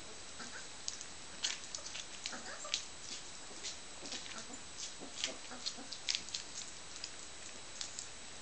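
A very young Dalmatian puppy pawing and nosing at fleece bedding, making irregular small clicks and scratches over a steady faint hiss.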